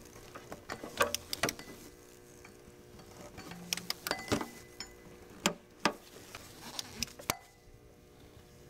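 Torque wrench ratcheting and clicking as the water pump bolts on a Volvo 850's engine are tightened in turn to 15 ft-lb: scattered sharp metal clicks, some in quick pairs, over a faint steady hum.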